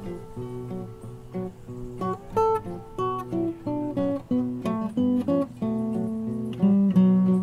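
Acoustic guitar music: a picked melody of separate, ringing notes.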